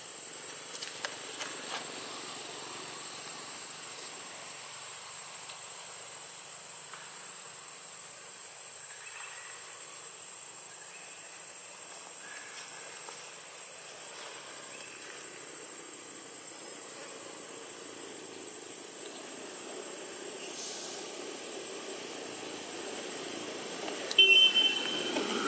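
Steady high-pitched hiss of forest background ambience. Near the end, a short, sharp, high-pitched squeak cuts in.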